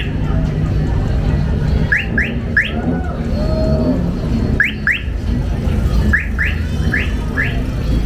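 Steady low rumble of car engines, with short rising chirps in twos and threes recurring every second or two over it.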